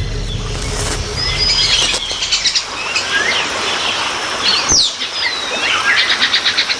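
Many birds calling at once: short whistled notes and chirps, some sliding up or down in pitch, with a fast repeated trill of about ten notes a second heard twice.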